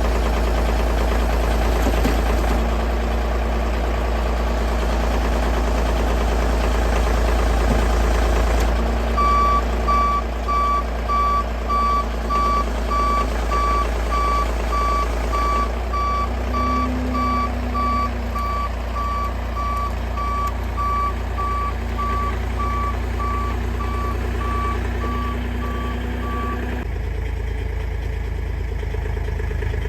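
A vehicle engine running, with a reversing alarm beeping steadily from about nine seconds in until near the end.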